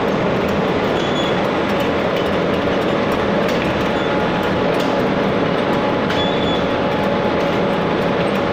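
Automatic rotary bottle-filling machine running: a steady mechanical clatter and hum with faint light clicks.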